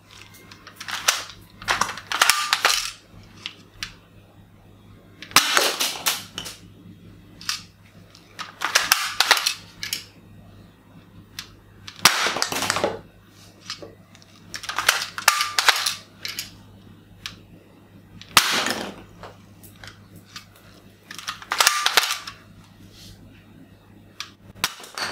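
Toy M249 machine gun firing in short bursts, about eight bursts a few seconds apart. Light knocks come between the bursts as small plastic bowling pins are hit and fall.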